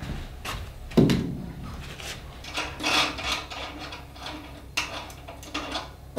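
Heavy battery cables and terminal hardware being handled at an inverter's battery terminals on a workbench: one loud knock about a second in, then scraping, rubbing and light clicks.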